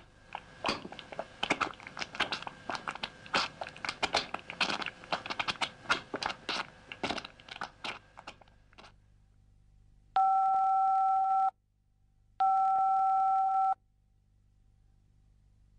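A dense, irregular crackling of clicks and pops for about nine seconds. Then two long telephone keypad tones at the same pitch, each held for about a second and a half, with a short gap between.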